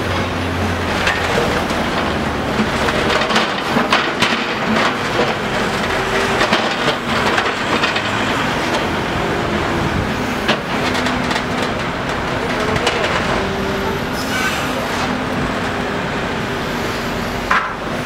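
Backhoe loader's diesel engine running steadily while its rear bucket digs a street trench, with several sharp knocks and scrapes of steel on soil and stones.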